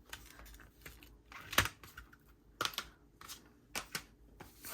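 Stiff photobook pages being handled and turned, giving a handful of light clicks and taps at uneven spacing, the loudest about a second and a half in.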